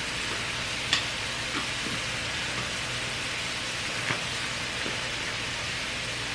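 Mushrooms and vegetables sizzling steadily in hot oil in a sauté pan, with a couple of light clicks about one and four seconds in.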